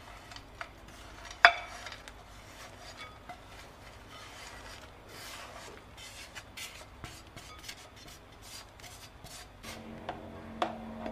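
Dry toasted flour and almond mix poured and scraped out of a pan into a glass bowl. A sharp clink of the pan against the glass bowl comes about one and a half seconds in, followed by soft, repeated rasping scrapes as the mix slides out. Near the end a steady low tone comes in, with a couple more clinks.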